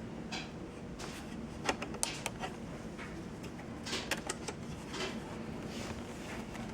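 Irregular clicks, knocks and brief rustles of hands handling objects at close range, over a steady low hum.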